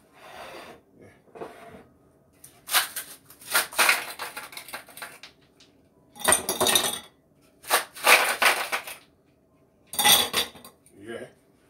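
Ice cubes cracked loose from a plastic ice cube tray and clattering into a drinking glass, in several separate bursts.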